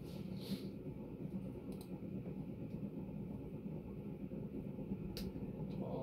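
Berni Panama-copy ceiling fan running steadily with a low hum and noise from its worn bearings. A few sharp clicks come through, one about half a second in, one near two seconds and one about five seconds in.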